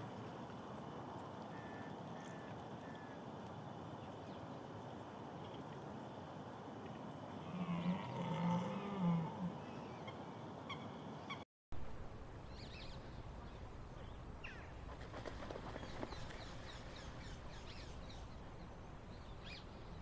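A red deer stag gives a few short, deep roars about eight seconds in, over a steady outdoor background hiss and scattered small-bird calls.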